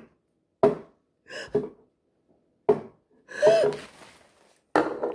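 A person's voice making a string of short non-word vocal sounds, about six, with silence between them; one a little past the middle slides up and then down in pitch.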